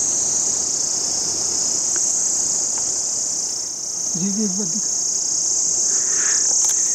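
Steady, high-pitched insect chorus, loud and unbroken, with a brief bit of a person's voice about four seconds in.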